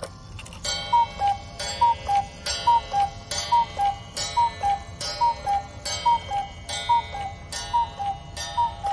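Engstler 4162 weight-driven one-day Black Forest cuckoo clock calling the hour: the two-note cuckoo, a high note then a lower one, repeats about ten times just under a second apart, each call led by a click of the mechanism.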